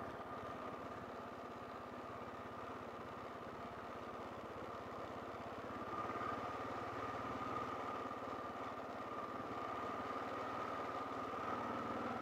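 Kawasaki KLR650's single-cylinder four-stroke engine running steadily under way, a little louder from about halfway.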